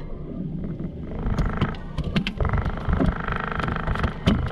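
A fishing reel whirring in rapid clicks for about two seconds in the middle, with several sharp knocks against the boat, over the low steady running of a Suzuki outboard motor.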